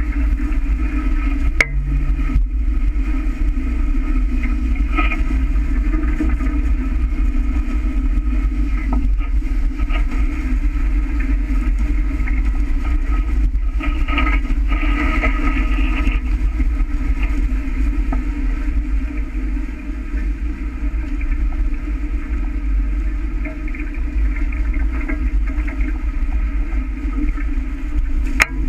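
Wind rumbling steadily over the camera's microphone on a sailing catamaran under way, with water rushing and splashing along the hull and a brief louder spray in the middle.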